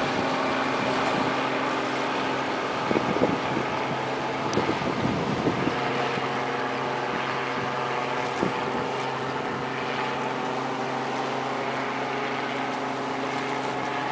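Boat engine running steadily with a low, even hum, and wind noise on the microphone.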